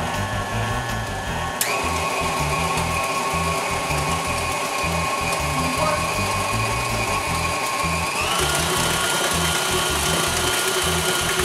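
KitchenAid tilt-head stand mixer running as it mixes dry ingredients into a batter, its motor whine stepping up in pitch twice, about one and a half seconds in and again about eight seconds in, as the speed is turned up from low.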